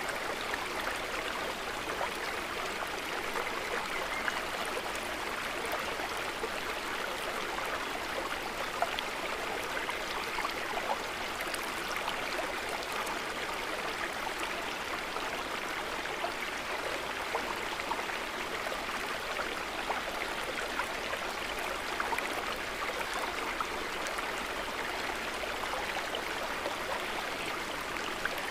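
Water trickling and babbling steadily, with small splashes and drips scattered through the even rush.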